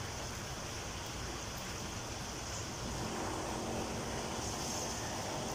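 Chicken frying in hot oil in a frying pan, a steady sizzle.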